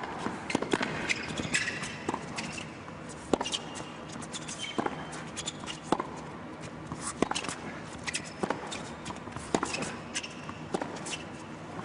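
Tennis rally on an indoor hard court: racket strikes on the ball in a steady back-and-forth, roughly one hit a second, about ten in all. Between the hits come the players' shoes squeaking on the court surface.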